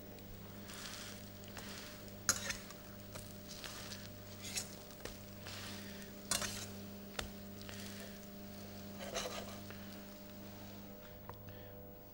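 Potato pancakes sizzling faintly in a frying pan, with a few short clicks and scrapes of a metal fish slice against the pan as they are turned and pressed.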